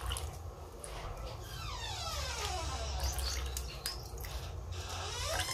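Coconut milk trickling in a thin stream from a mesh strainer into a wok of coconut sauce.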